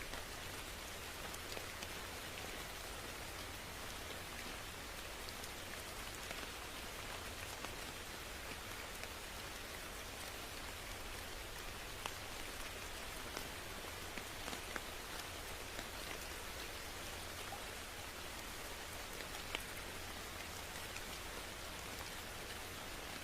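Steady rain falling, with a continuous hiss and scattered individual drops ticking sharply on a surface.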